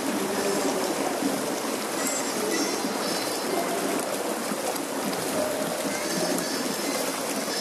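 Hot-spring water pouring steadily from a spout and splashing into the bath pool.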